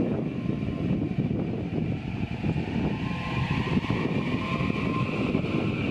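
Kintetsu 22600 and 22000 series limited-express electric train pulling away from a station: a steady low rumble from the cars with a faint rising whine building over the second half as it gathers speed.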